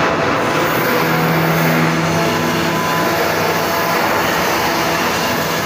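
Steady, loud drone of shipyard machinery aboard a ship under construction: a dense noise with a low hum running through it.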